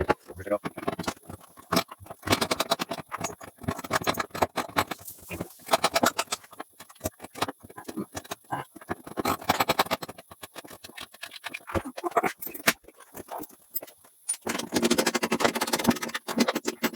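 Irregular metallic clinking and rattling, many small sharp clicks in quick succession, with denser clusters in several stretches.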